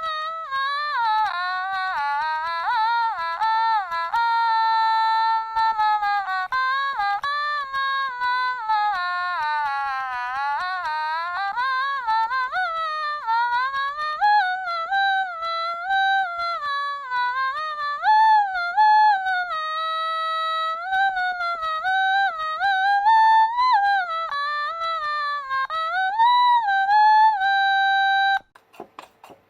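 Otamatone being played: a single buzzy, voice-like tone sliding smoothly from note to note through a melody. It stops about a second before the end, followed by a few small clicks.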